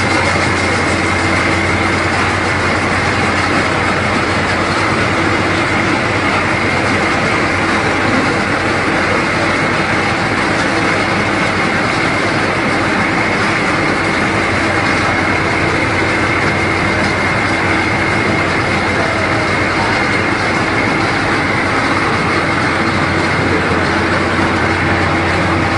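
Small rice milling machine running steadily under load: an even, loud machine noise with a constant high-pitched whine and a steady low hum.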